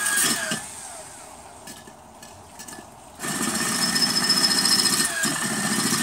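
Cordless drill grinding a hole into an upturned stone bird bath bowl. It runs in two bursts, briefly at the start and again from about three seconds in, with a short dip near the end. The battery is running out of power and the hole is barely getting bigger.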